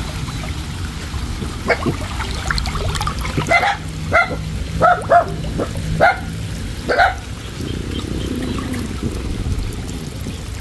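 A dog barking from the bank in short, separate barks, about eight of them, stopping about seven seconds in. Water sloshes underneath as a person wades chest-deep through it.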